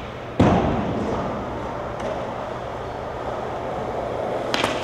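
Skateboard in an indoor skatepark: a loud slap of the board about half a second in, then a steady rumble of urethane wheels rolling on concrete, with a sharp clack near the end.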